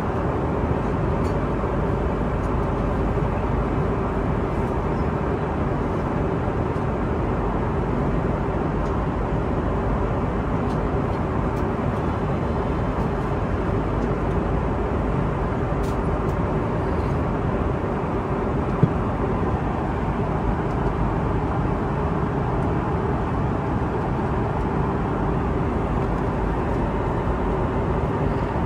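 Airbus A330-300 cabin noise in cruise: a steady, even rush of airflow and engines with a faint underlying hum. One sharp click comes about two-thirds of the way through.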